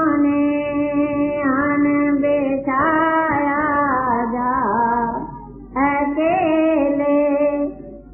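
A voice singing a devotional hymn in long, drawn-out notes that waver and bend in pitch, with short breaks a little past halfway and at the very end.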